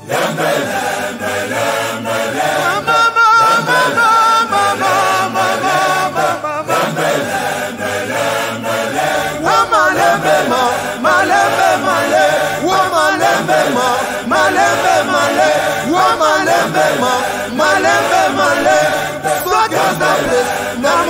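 Vocal group singing a gospel song in Lingala, several voices in harmony; a deeper bass part comes in about nine seconds in.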